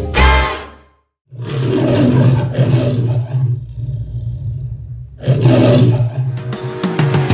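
A lion roaring in two long bouts, the first starting just over a second in and the second about five seconds in.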